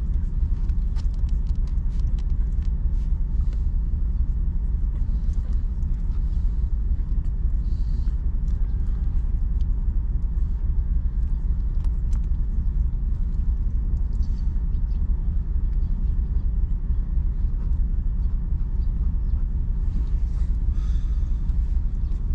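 A steady low rumble, with faint scattered soft clicks from puppies suckling.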